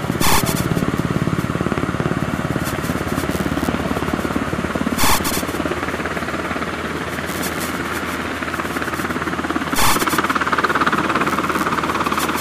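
Helicopter approaching, its rotor chop a steady rapid pulsing that grows louder in the last couple of seconds. Three brief loud bursts of noise come about five seconds apart.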